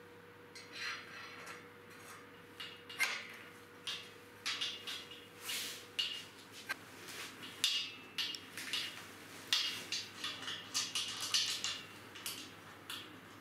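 Small steel parts clinking and rattling against a steel frame as a bracket, nut and bolt are handled and fitted: irregular short metallic clicks, some with a brief ring, coming more often after the first few seconds.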